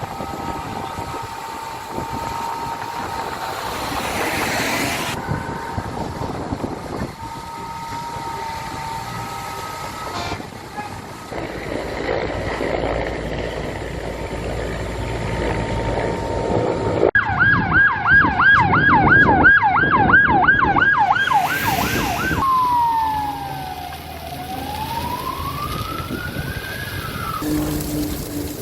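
An emergency vehicle's siren: about two-thirds of the way in it sounds a fast yelp, warbling about four times a second, then switches to a slow wail that falls and rises once before cutting off near the end. Before it, a steady noisy background with a steady high whine, broken by several abrupt changes.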